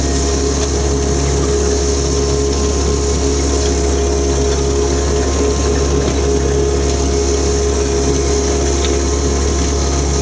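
Jacobsen HR-5111 rotary mower's diesel engine running steadily while the mower is driven, with a constant low hum and steady tones over it.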